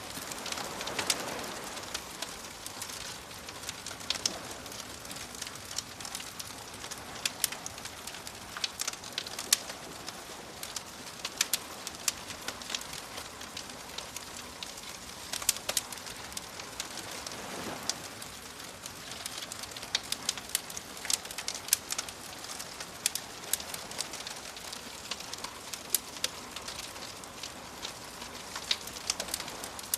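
Campfire crackling with frequent sharp pops, over soft waves washing in; one swell comes about a second in and another a little past halfway.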